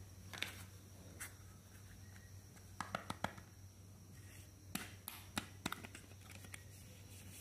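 Small plastic clicks and taps as a toy makeup compact is handled and its hinged mirror lid flipped open, in two quick clusters about 3 and 5 seconds in, over a faint steady low hum.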